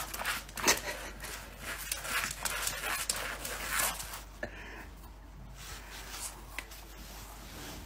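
A small pet breathing hard and scuffling as it tugs at a string toy, in quick noisy bursts that die down about four seconds in.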